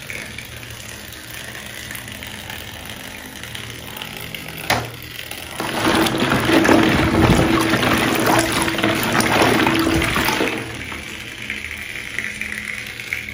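Water sloshing and splashing as a hand stirs through plastic balls floating in a tub of water, loudest for about five seconds in the middle after a softer stretch and a single knock.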